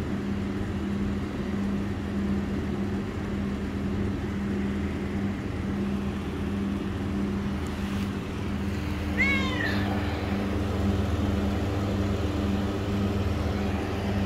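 A domestic cat meows once, briefly, about nine seconds in, over a steady low hum.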